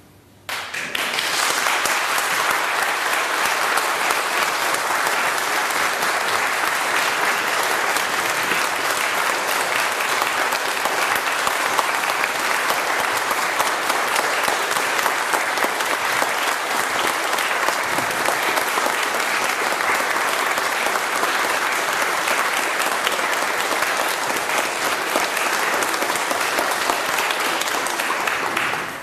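Audience applauding: the clapping breaks out suddenly about half a second in and dies down near the end.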